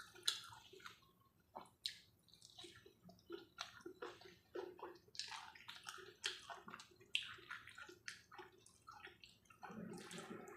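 Faint, close-up eating sounds of a person chewing food: an irregular string of soft wet clicks, smacks and squelches from the mouth.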